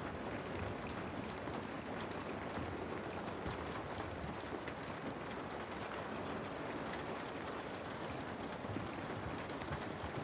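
Steady rain ambience: a continuous hiss of rainfall with faint scattered drop ticks.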